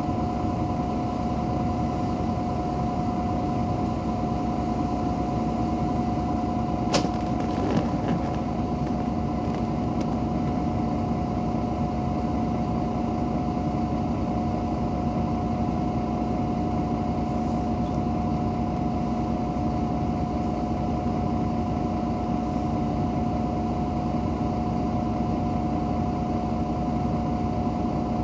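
Irisbus Citelis 18 articulated bus idling at a standstill, its Iveco Cursor 8 inline-six diesel running steadily with a constant high tone over the engine hum. A short sharp click comes about seven seconds in.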